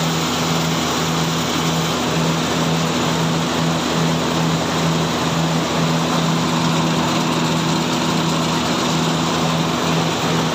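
Compact rice milling machine running steadily as grain pours through it: a loud even hiss with a low hum that pulses on and off at a regular beat, about one and a half times a second.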